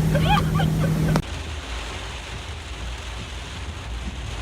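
A motorboat engine running with voices shouting over it, cut off abruptly about a second in, leaving steady wind and water noise.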